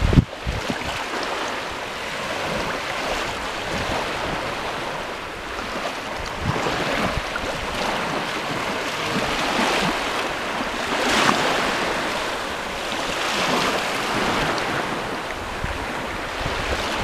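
Incoming flood tide washing in over a mangrove mudflat: shallow water rushing and lapping across the mud in a steady wash that swells every few seconds.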